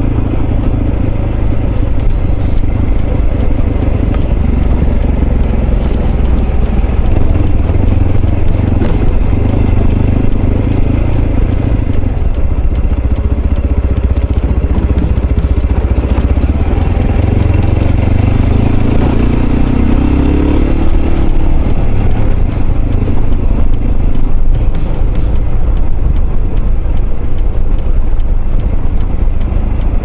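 Mondial RX3i Evo motorcycle's single-cylinder engine running steadily while the bike rides over gravel, with scattered clicks of stones under the tyres. About eighteen seconds in, the engine note rises as the bike speeds up.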